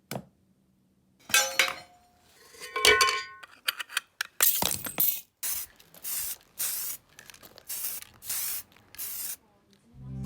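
Two metallic clinks of tools, then a series of about seven short hissing sprays, each under half a second.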